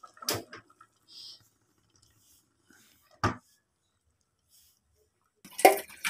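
Two short knocks of an aluminium cooking pot and its metal ladle being handled, about three seconds apart. Near the end, hot water and boiled papaya leaves start splashing out of the pot into a plastic colander in a steel sink.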